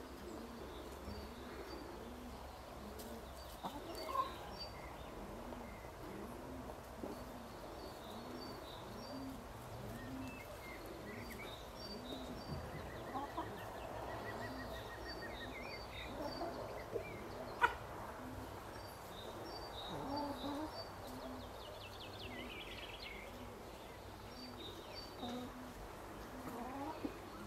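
Birds calling: short high chirps and a couple of trills from small songbirds, over a steady run of low, evenly repeated calls about one and a half a second. One sharp click about two-thirds of the way through.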